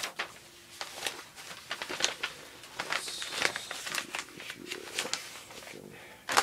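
Packing material and a paper manifest being handled in a cardboard box: rustling and crinkling with scattered light clicks and taps, and one sharp knock near the end.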